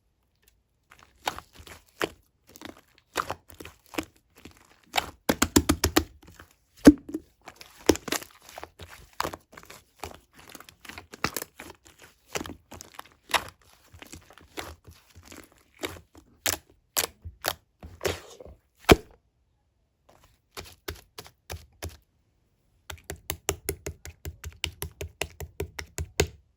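Hands pressing and kneading slime mixed with clay, making sharp sticky clicks and pops in irregular clusters. Near the end comes a steady run of clicks, about four a second.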